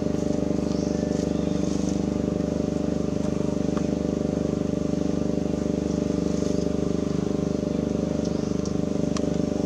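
A small engine running steadily, a low even drone with a fast regular pulse and no change in speed.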